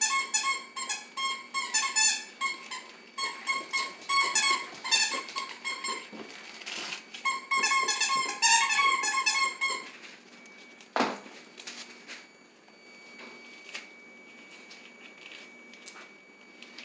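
Severe macaw tearing and chewing newspaper: repeated bursts of high, rapidly pulsing squeaks for about the first ten seconds. The sound then turns much quieter, with faint crinkling and one sharp click.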